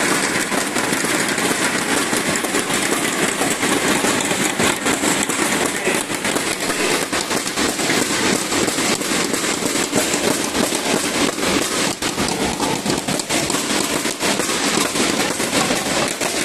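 Crowd of spectators in a large hall clapping and cheering: a dense, steady patter of many hands with voices underneath, for the whole stretch.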